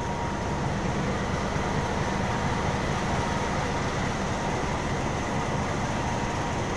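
Diesel locomotive engine running steadily at idle at close range, a constant low rumble with a thin steady whine on top.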